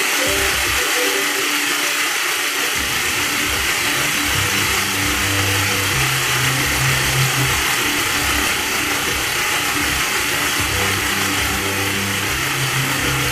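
Steady whirring hiss of a finger spinner's full ceramic silicon-nitride bearing with tungsten carbide balls spinning freely, with background music's bass line underneath.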